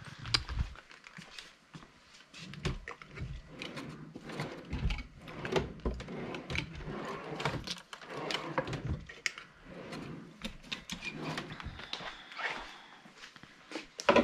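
Footsteps and rummaging: irregular clicks, knocks and low thumps as someone moves about and handles things, including a road-case tool drawer of screwdrivers and hex keys.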